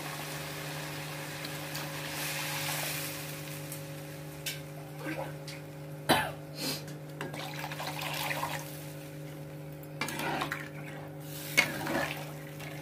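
A flat spatula stirring and scraping a watery curry gravy in a nonstick wok, with a soft hiss from the hot gravy over the first few seconds and scattered knocks of the spatula against the pan after that. A steady low hum runs underneath.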